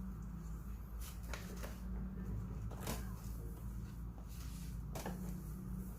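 A few light clicks and taps of espresso gear being handled, over a steady low hum.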